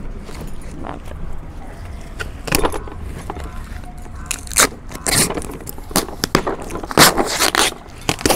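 A parcel's packaging being handled and torn open: irregular bursts of rustling and crinkling that come thicker in the second half, over a low steady rumble.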